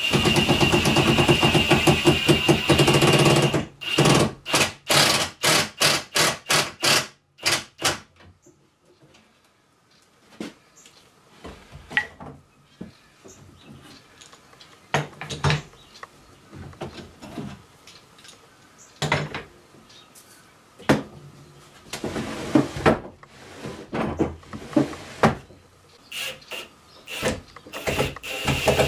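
Cordless drill running at a wooden drawer front: one long run, then a quick series of short bursts. Scattered light knocks and taps of hand work follow, and the drill starts running again near the end.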